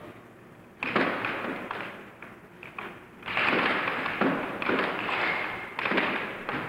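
Air hockey mallet and puck knocking on the air table as the puck is worked back and forth, a run of irregular sharp clacks over a hiss.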